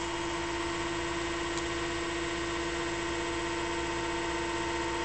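Steady machine hum at a constant pitch, with one faint click about a second and a half in.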